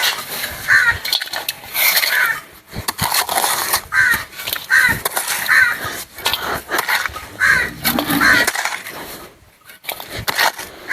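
Digging by hand: a digging tool repeatedly striking and scraping into stony soil, while crows caw over and over.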